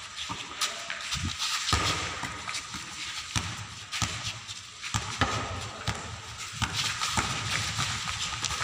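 A basketball being dribbled on a bare concrete floor while players' feet slap and scuff as they run, making a string of irregular knocks and taps.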